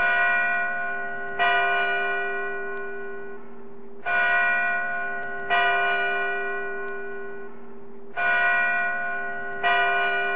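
Bell chimes struck in pairs, the second strike of each pair about a second and a half after the first, three pairs in all. Each strike rings and slowly fades over a steady low held tone.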